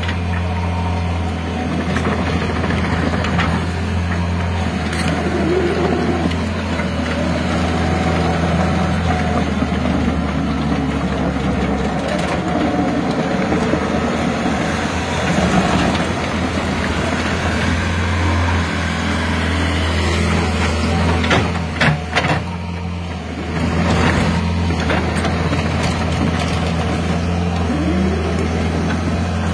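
Kobelco SK120-1 hydraulic excavator's diesel engine running steadily under working load as the arm digs and swings, its pitch rising and falling with the hydraulic demand. There are a few sharp knocks about three-quarters of the way through.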